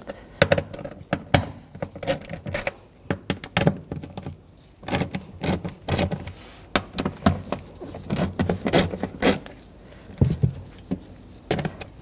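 Ratchet with a 10 mm socket clicking in short runs as it unscrews the nuts on a fuel pump access cover, with light metallic clinks of socket and nuts between the runs.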